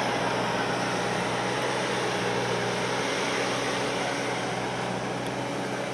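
Bobcat skid-steer loader's engine running at a steady speed, a constant mechanical drone with no revving.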